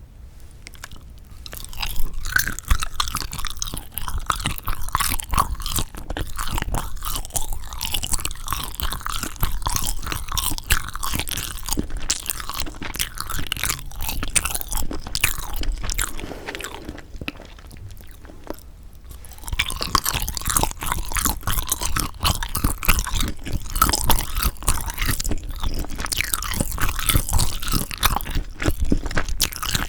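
Close-miked chewing of sundae, Korean blood sausage, with many quick wet clicks. The chewing eases off a little past halfway and picks up again at about two-thirds of the way through.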